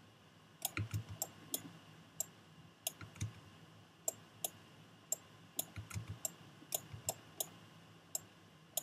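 Computer mouse buttons and keyboard keys being pressed: irregular sharp clicks, about two a second, starting about a second in.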